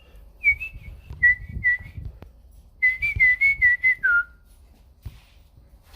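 A person whistling a short tune: a few notes, a brief pause, then a quicker run of notes that ends on a lower, falling note.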